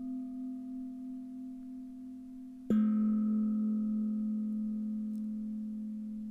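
Singing bowl ringing, with a slow wavering decay. A second, slightly lower-pitched bowl is struck about two and a half seconds in and rings on, fading gradually.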